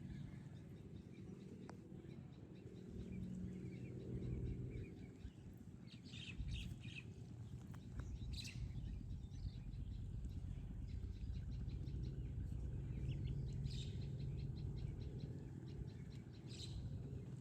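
Birds calling outdoors several times in short chirping phrases and quick trills, over a steady low hum.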